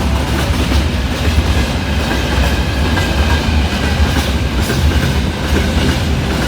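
A train passing close by, its wheels clattering over rail joints with a steady heavy rumble.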